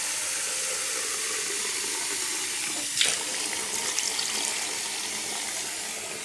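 Tap water running into a glazed ceramic bowl at a sink as the bowl fills, with a single knock about three seconds in.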